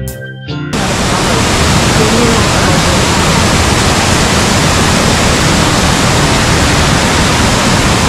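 Waterfall roar: a loud, steady rush of falling water that comes in suddenly under a second in, as a guitar music intro cuts off.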